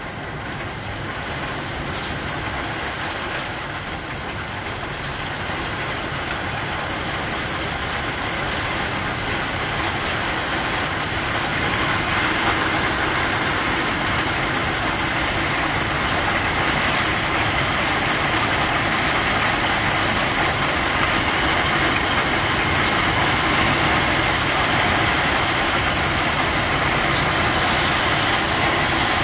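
Hail pelting down hard on corrugated metal roofs and trees: a dense, continuous clatter of countless small impacts. It builds up over the first dozen seconds, then holds steady at full intensity.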